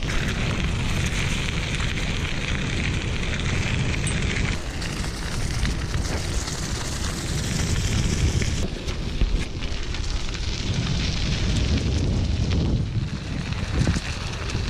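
Bicycle tyres rolling over a gravel path scattered with dry leaves, a steady crunching crackle, with wind rumbling on the bike-mounted microphone.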